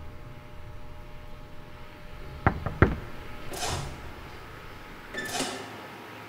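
Two sharp knocks about a third of a second apart, followed by two brief swishing noises.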